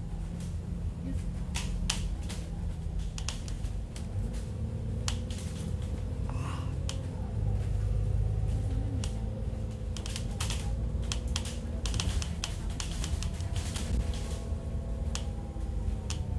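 Ride inside a moving bus: a steady low engine and road rumble, with frequent sharp ticks and rattles from loose interior fittings and windows.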